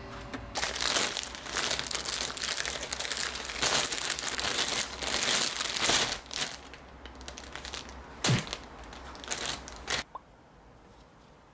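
Crinkling and rustling handling noise, dense and irregular for about ten seconds, with one sharp knock about eight seconds in; it cuts off abruptly near the end.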